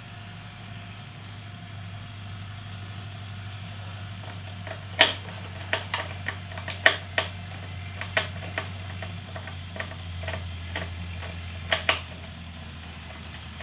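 Screwdriver driving a screw into a metal licence-plate bracket: a string of irregular sharp clicks and clinks starting about five seconds in, over a steady low hum.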